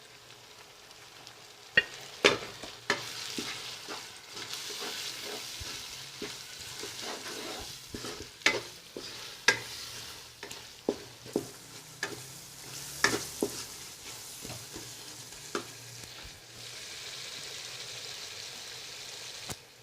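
Tomato, green chilli, onion and ginger-garlic masala sizzling in hot oil in a kadhai as it is stirred with a spoon, the freshly added spices being fried in. The spoon knocks and scrapes against the pan at irregular moments over a steady sizzle.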